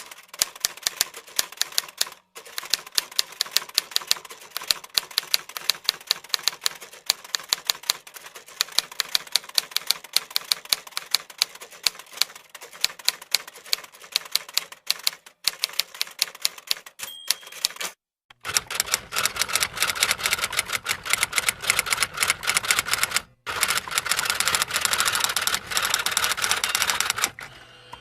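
Typewriter keys clacking in rapid, uneven runs of strikes, with a short bell-like ding about 17 seconds in. After a brief gap a denser, fuller run of typing clatter follows.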